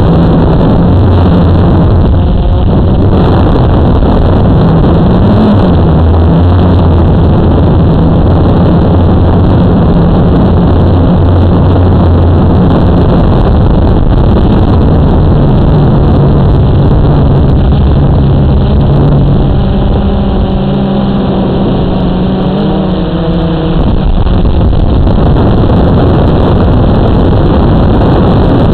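Blade 350QX quadcopter's brushless motors and propellers running, heard close from its own onboard camera as a steady hum over a loud rushing noise. About twenty seconds in the hum's pitch shifts and the sound dips slightly before settling again.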